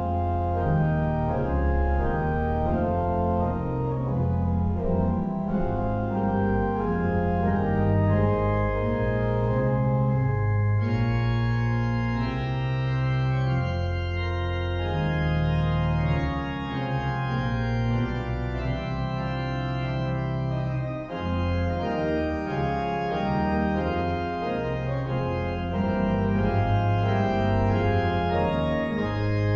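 Organ playing a slow piece in sustained chords that change every second or two, with a bass line underneath.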